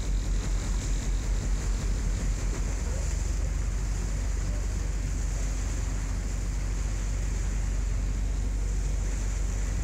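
Wind rumbling on the microphone over a steady hiss of water, as recorded out on open water. It comes in gusts for the first couple of seconds, then evens out.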